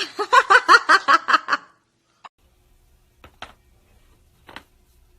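A girl laughing, a quick run of giggles lasting under two seconds, followed by a few sharp, fainter clicks spaced about a second apart.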